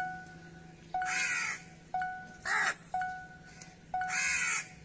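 Crow cawing: three harsh caws, about a second and a half apart. A short electronic tone sounds once a second throughout.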